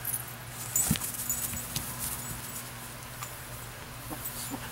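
Belgian Malinois moving about on grass: scattered patter and rustle, with one sharp knock about a second in, over a steady low hum.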